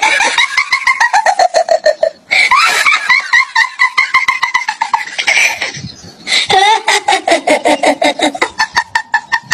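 High-pitched laughter in rapid 'ha-ha' pulses, in three long fits that each slide down in pitch.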